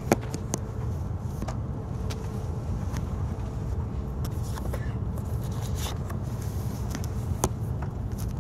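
Steady low rumble inside a Shinkansen passenger car as the train pulls slowly out of the station, with scattered light clicks and knocks, a sharp knock right at the start and another near the end.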